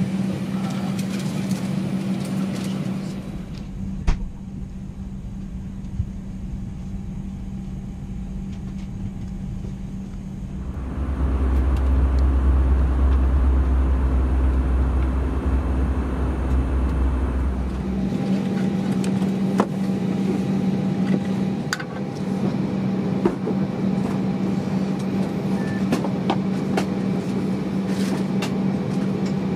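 Steady cabin hum inside a parked Airbus A320, with a louder, deeper rumble for several seconds in the middle and a few light clicks.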